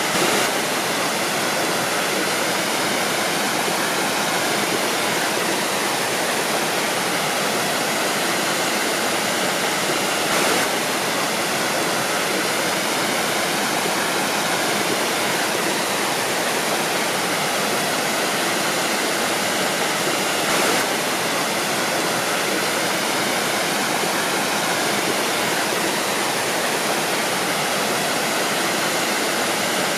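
Waterfall rushing: a steady, full hiss of falling water that does not let up.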